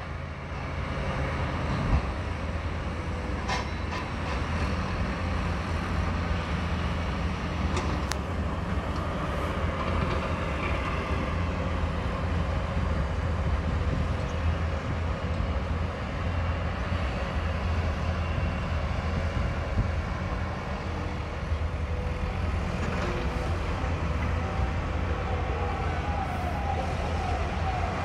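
Steady low engine rumble of heavy construction machinery such as excavators and trucks, with a few faint clicks.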